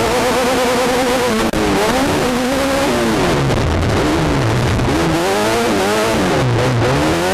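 Class 10 desert race car's engine heard from inside the car, running at high revs with a wavering pitch. The revs drop sharply twice, about three and six seconds in, and climb back up each time.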